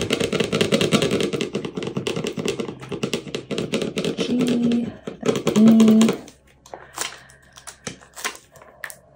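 Adhesive vinyl crackling and ticking as a weeding hook picks and peels it from its backing: a dense run of fast clicks for about six seconds, then only scattered clicks.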